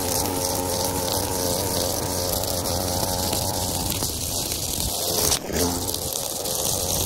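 Gas-powered string trimmer running steadily as it cuts long, overgrown grass, with a brief dip in level about five seconds in.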